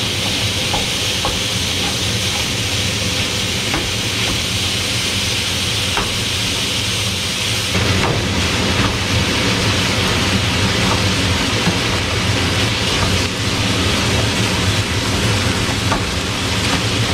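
Venison sausage sizzling as it browns in a nonstick skillet, stirred and broken up with a plastic spatula that taps lightly against the pan now and then. A steady rushing noise runs underneath.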